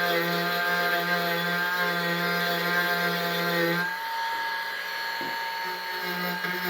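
Dremel rotary tool running steadily with a whine of many overtones while it cleans plastic weld seams. Its tone changes for about two seconds partway through, then returns.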